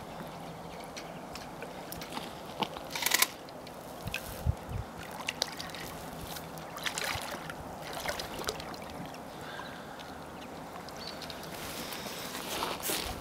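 Water splashing and sloshing in short bursts as a hooked carp thrashes at the surface close to the bank while being played, with sharper splashes about three seconds in and near the end.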